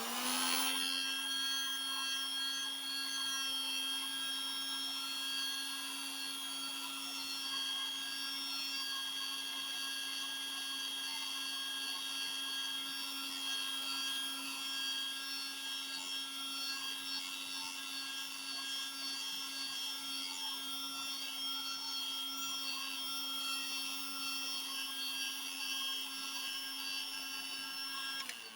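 Heat gun switched on, its fan motor spinning up and then running with a steady whine, switched off near the end and winding down.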